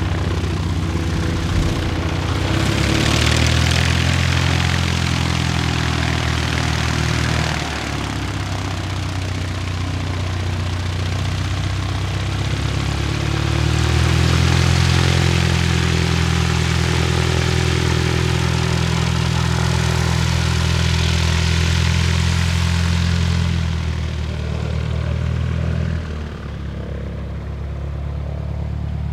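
Piper PA-28-180 Cherokee's four-cylinder Lycoming O-360 engine and propeller running at low power on the ground. The engine note steps up and down in loudness a few times, dropping off over the last few seconds.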